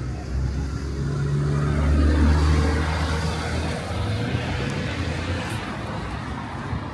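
Street traffic: a motor vehicle's engine running as it passes close, growing loudest about two seconds in and then fading, over the general noise of a busy road.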